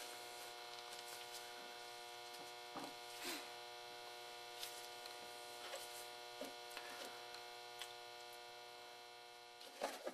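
Steady electrical mains hum with a faint hiss, broken by a few faint, short taps and clicks.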